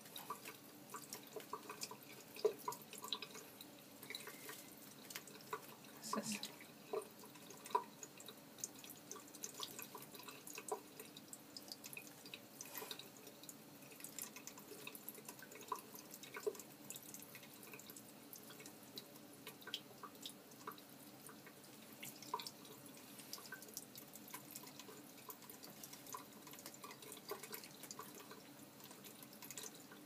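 A thin stream from a bathroom sink tap splashing into cupped hands and the basin, with irregular dripping.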